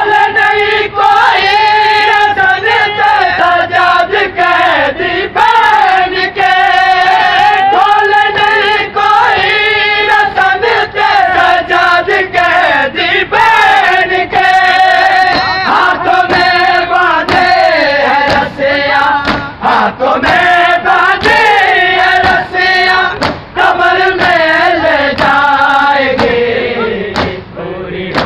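A noha, a Shia mourning lament, sung loudly by a group of men in a long wavering melody. Frequent sharp slaps cut through it, typical of matam, hands striking chests in time with the lament.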